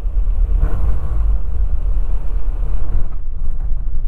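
Cockpit noise of a PiperSport light aircraft landing on a grass strip: a steady low rumble of the Rotax 912 engine and propeller at low power with rushing airflow as the wheels touch down and roll on the grass. The higher hiss drops away about three seconds in.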